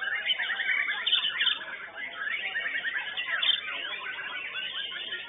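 White-rumped shamas (murai batu) singing: a dense run of quick, varied whistles and trills from several birds at once, loudest in the first second and a half.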